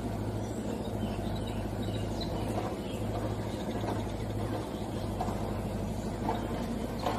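A steady low mechanical hum, like a motor running at a constant speed, with no change in pitch.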